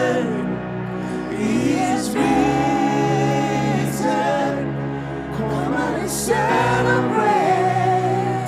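Gospel worship music: sustained keyboard chords under sung, wavering vocal lines, with a few soft cymbal swells.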